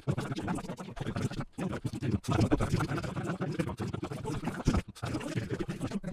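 Speech played back at many times normal speed, turned into a rapid, choppy garble with no words to make out, broken by a few brief gaps.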